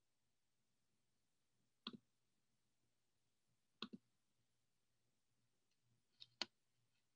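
Near silence with a faint low hum, broken by three short pairs of clicks from a computer, about two seconds apart.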